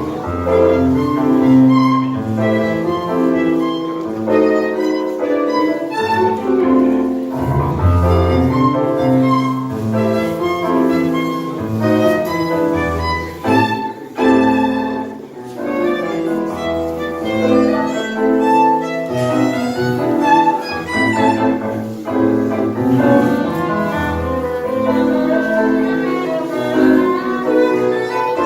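Live tango ensemble playing: a violin carries the melody over piano and bass, with a steady rhythmic pulse.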